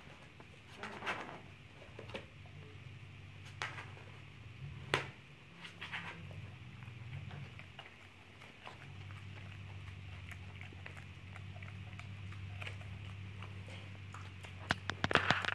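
A dog chewing and tearing a paper birthday card: scattered crinkles and crackles of paper and mouth noises, with a quick burst of louder tearing near the end. A steady low hum runs underneath.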